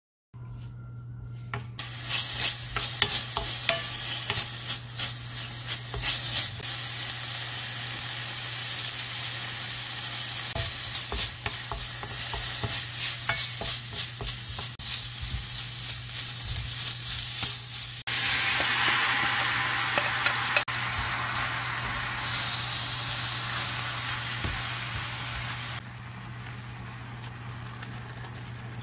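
Pork pieces sizzling in hot oil in a stainless steel pan as a spatula stirs them, with repeated scraping clicks against the pan. Red pepper powder and then kimchi are stirred through, and the sizzle is quieter near the end.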